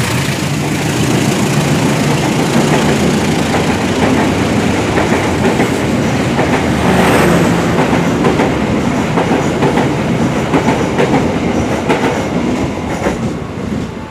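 Coaches of a locomotive-hauled passenger train passing close at speed, with a loud rushing noise and wheels clicking over rail joints. The sound drops away near the end as the last coach goes by.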